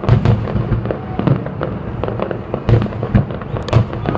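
Fireworks display: a rapid, irregular run of bangs and cracks from aerial shells, several a second, over a continuous low rumble of distant booms.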